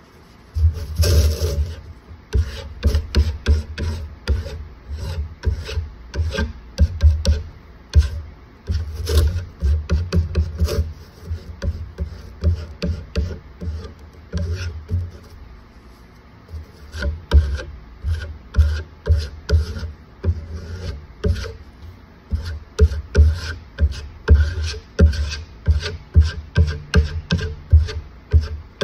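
Putty knife scraping wood putty across hardwood strips in quick repeated strokes, about two a second, working the filler into the joints and grain before final sanding.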